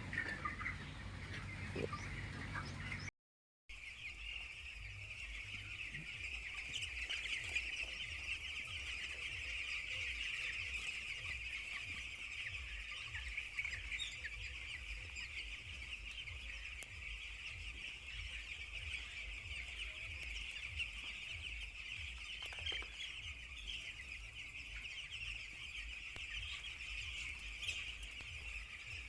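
A large flock of poultry chicks peeping steadily, many small calls merging into one continuous chorus. There is a brief total dropout about three seconds in, and a low hum underneath.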